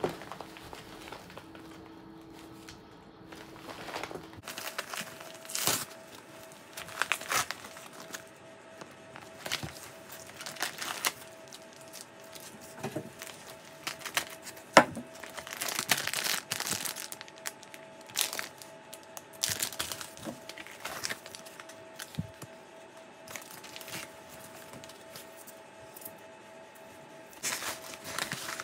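Plastic bag and packaging crinkling and rustling in irregular bursts as hands open an insulated meal-kit cooler bag and rummage among the wrapped packs, then handle a brown paper bag.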